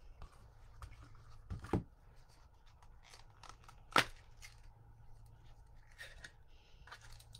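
Light handling noise of product packaging: scattered soft clicks and rustles, with one sharper click about four seconds in.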